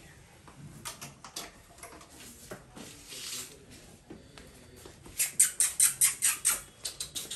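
Saint Bernard puppies' claws clicking and pattering on a slippery tiled floor as they walk about, with a quick run of sharper clicks, several a second, about five seconds in.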